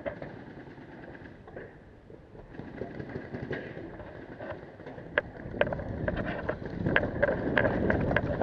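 A paintball player's own movement as he leaves cover and runs: footfalls, gear rattling and clothing rustle, getting louder from about five seconds in, with many sharp, irregular clicks and knocks.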